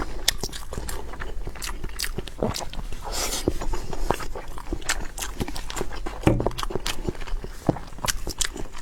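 Someone biting and chewing meat close to the microphone: a steady string of wet clicks and smacks.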